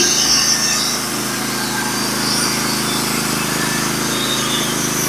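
Norwood HD36 portable bandsaw mill running steadily under load, its engine pulling the band blade through a red oak log, with the hiss of the cut over the engine. The blade is cutting dry, without its lubricating water.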